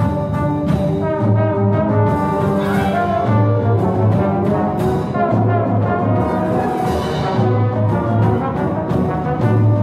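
Solo trombone playing with a full wind orchestra, over a repeated low bass note.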